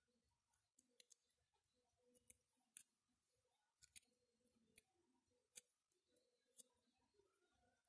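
Faint, scattered crinkles and clicks of a strip of gold-coloured cigarette paper being folded by hand around a ring's stone, about ten small ticks with near silence between them.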